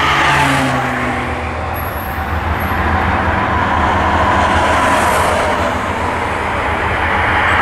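Amtrak Empire Builder's bi-level passenger cars rolling past, with the steady, continuous noise of wheels running on the rails.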